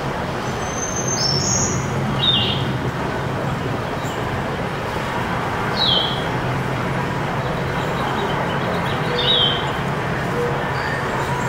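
Birds chirping: short, falling chirps every three to four seconds, over a steady low hum and rumble.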